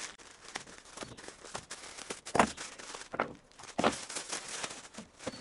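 Plastic wrapping and a plastic bag rustling and crinkling as they are cut open and pulled off a bundle, with scattered sharp snips and crackles at irregular moments.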